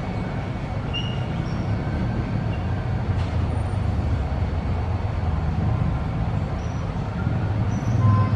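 Steady low rumble throughout, with a few faint, short, high chirps over it.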